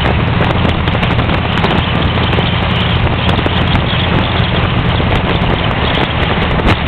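Car engine running steadily at cruising speed, a constant low note under wind and road noise.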